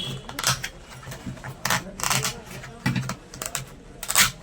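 The old paper cone of an 8-inch loudspeaker being torn out by hand, in a series of short, irregular rips and scrapes, the loudest near the end.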